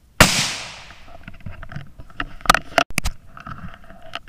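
A single shot from a .17 HM2 rimfire rifle: a sharp crack with a short echo that dies away over about half a second. Handling rustle follows, with several sharp clicks about two and a half to three seconds in.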